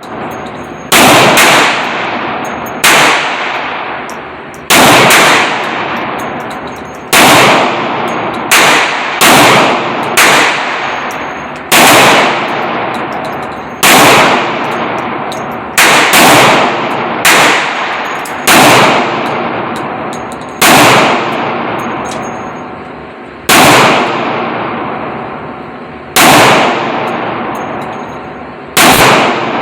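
Gunshots fired one at a time, about seventeen at irregular intervals of one to three seconds, each a sharp crack followed by a long fading tail.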